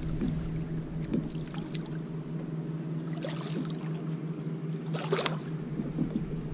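Light water splashing and sloshing at the side of a kayak as a hooked redfish is fought toward a landing net held in the water, with one short louder splash about five seconds in.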